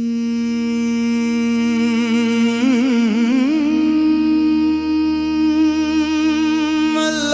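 Qawwali music intro: a long held melodic note with a steady drone beneath it. The note wavers about three seconds in, then settles on a higher pitch. A new part enters near the end.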